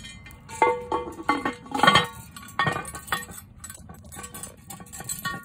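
Cast iron Dutch oven lid being set on with a metal lid lifter: several metallic clanks and clinks that ring on briefly, the loudest about two seconds in.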